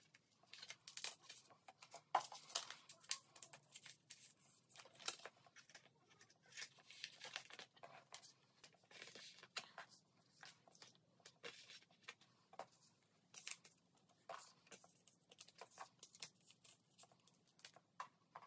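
Faint rustling and crinkling of plastic binder sleeve pages, with scattered light clicks, as photocards and paper filler cards are slid into the pockets.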